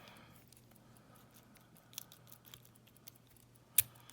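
Light metallic clicks and taps of a padlock's lock core being worked apart with small tools, with one sharper click near the end.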